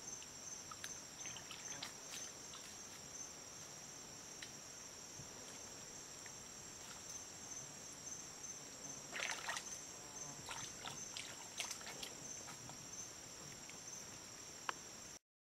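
Insects chirping in a steady, evenly pulsing high-pitched chorus, with a few splashes and sharp clicks in a shallow swamp pool, strongest about nine seconds in and again around twelve. The sound cuts off suddenly near the end.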